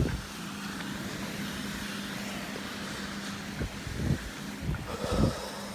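A motor engine running with a steady, even hum, with a few short low thumps of wind on the microphone in the second half.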